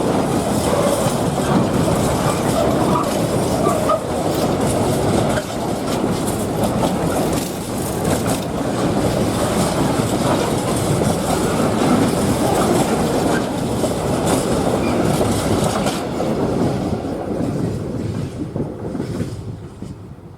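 Train of Eas open freight wagons rolling past, wheels clattering over the rail joints, with a few brief wheel squeals a few seconds in. The sound fades away over the last couple of seconds as the train moves off.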